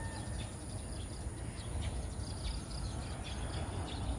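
Quiet rural outdoor ambience: a steady low rumble on the microphone with faint, scattered high chirps from birds.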